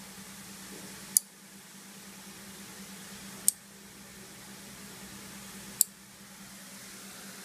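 Songle SLA-05VDC-SL-A 30 A 5 V relays switching, three sharp single clicks a little over two seconds apart, each one a relay being toggled on or off from the phone app. A faint steady hum lies underneath.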